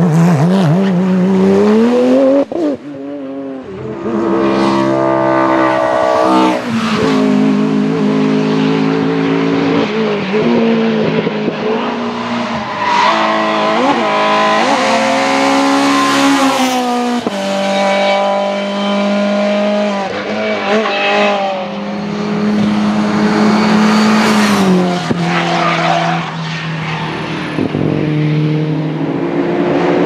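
Hillclimb race cars driven flat out, one after another, among them a Porsche 911 and a Citroën C2. Each engine revs high, drops sharply at gear changes or lifts for the bends, then climbs again, with some tyre squeal.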